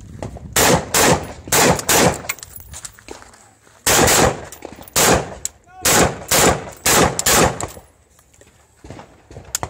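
AR-style semi-automatic carbine fired in quick pairs, about a dozen sharp shots in two strings with a pause of about two seconds between them. Two fainter reports follow near the end.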